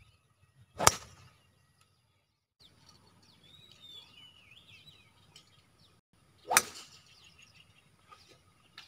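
Two golf shots: a driver striking the ball off the tee about a second in, a sharp crack, then an iron striking a ball off the fairway grass at about six and a half seconds. Birds chirp faintly in between.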